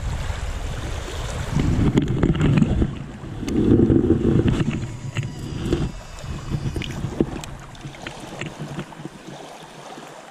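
Wind buffeting the microphone over small waves washing onto a sandy shore. The gusts ease off after about six seconds, leaving a few light clicks.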